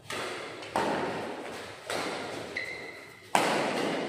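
Badminton rackets striking a shuttlecock back and forth in a doubles rally: about five sharp hits, echoing in a large hall, the loudest a little over three seconds in.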